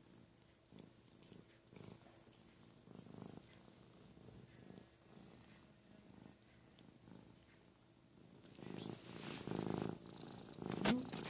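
Domestic cats purring in soft, rhythmic pulses during mutual grooming. About eight seconds in the purring grows much louder as the orange cat comes right up against the microphone.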